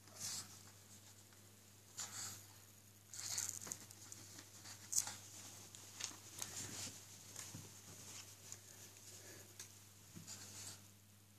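Soft, irregular rustling and scratching of a towel as a Pomeranian puppy moves and paws about on it, in short bursts, the loudest about halfway through.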